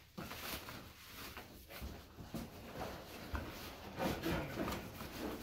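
Bubble wrap and cardboard packing being handled and pulled out of a shipping box: irregular rustling and scraping, busiest about four seconds in.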